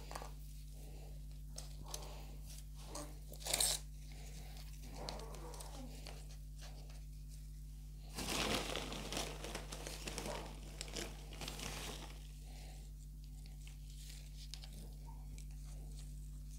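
Plastic bag of potting soil crinkling as a hand digs into it, densest for about four seconds just past the middle. Around it are scattered small rustles and taps of soil and a plant pot being handled, over a steady low hum.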